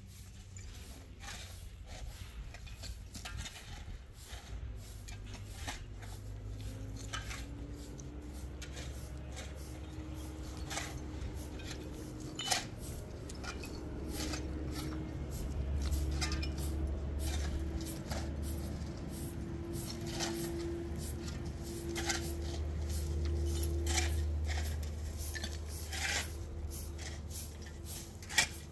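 Scattered light clicks and clinks over a low steady hum. A faint tone slowly rises in pitch from about six seconds in, then holds.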